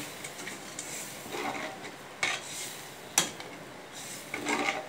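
Ladle stirring a thin tamarind gravy in a metal pan, scraping and clinking against the pan several times, with one sharp clink about three seconds in.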